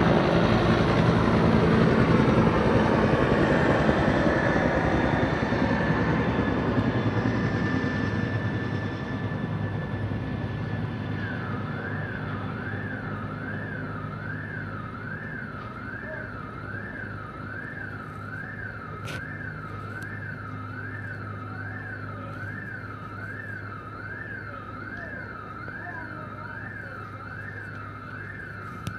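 A loud engine rumble fades away over the first ten seconds or so. Then an emergency-vehicle siren starts a fast wailing yelp, rising and falling about one and a half times a second.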